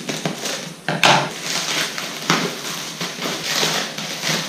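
Black plastic parcel wrapping crinkling and tearing as it is cut with scissors and pulled open by hand, with a sharp tear about a second in.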